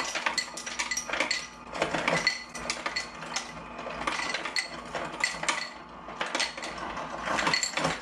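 Refrigerator door ice dispenser dropping ice into a cup, the ice clattering and clinking against the cup in repeated bursts about once a second.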